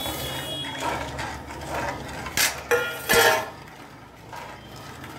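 Metal spoon stirring and clinking against an aluminium kadai as sugar goes into boiling water, with a few sharp ringing clinks a little over two and three seconds in.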